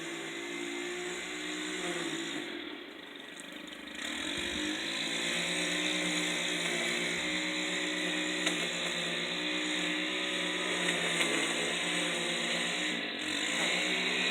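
Small gas-powered landscaping equipment engine running with a wavering pitch. It dips briefly about three seconds in, then runs louder from about four seconds on.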